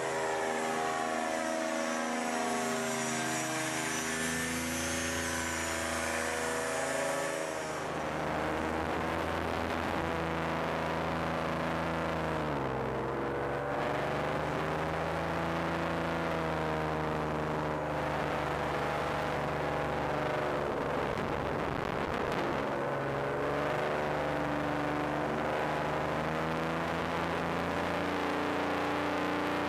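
Paramotor engine and propeller running continuously in flight. The sound changes abruptly about eight seconds in, then holds a steady drone whose pitch drops about twelve seconds in and dips again around twenty-two seconds.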